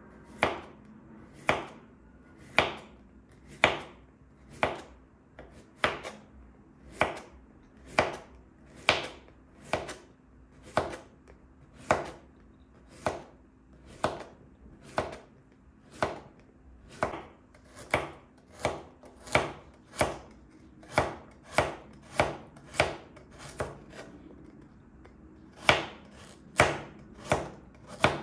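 Crinkle-cut slicer blade chopping down through zucchini and then carrots onto a wooden cutting board, a sharp knock with each cut. The knocks come about once a second at first and faster later on, and are loudest near the end.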